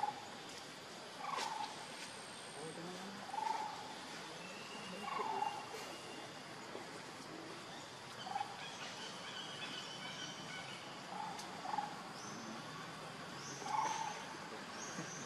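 Short animal calls repeating every one to two seconds over a steady outdoor hiss, with a few brief high whistle-like calls near the end.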